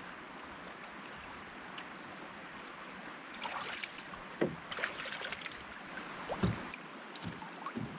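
Steady rush of running water, then from about three seconds in, irregular knocks and bumps on a canoe hull with splashing, as the canoe is loaded and boarded at the water's edge.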